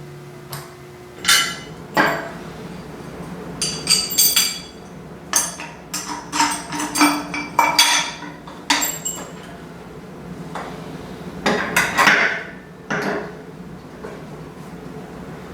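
Metal parts and hand tools clinking and knocking in irregular taps, a dozen or so sharp metallic hits in clusters, as parts of a kart chassis are fitted together.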